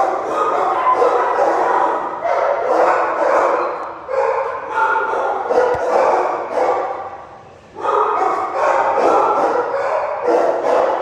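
Many shelter dogs barking in their kennels at once, a continuous jumble of overlapping barks and yips, easing off briefly about seven seconds in before picking up again.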